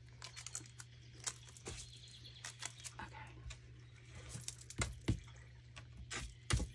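Light taps, clicks and rustles of ribbon and paper being handled and positioned on a craft table, a few louder knocks near the end, over a steady low hum.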